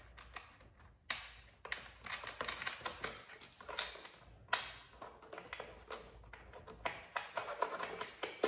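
Small nuts being threaded by hand onto the mounting studs of a lawn mower's plastic recoil starter housing: irregular light clicks and scrapes of metal and fingers on plastic, with a couple of sharper knocks.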